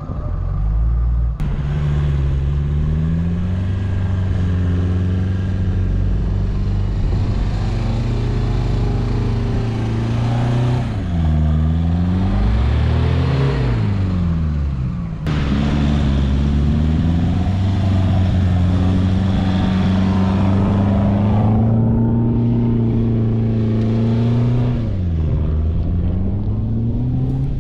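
Four-wheel-drive engine running hard under steady throttle through soft sand, held on the power to avoid getting bogged. Its pitch dips and climbs back up a few times, around the middle and again near the end.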